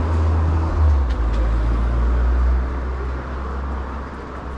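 City street traffic: a motor vehicle's low engine rumble over road noise, loudest in the first half and then easing off as it passes.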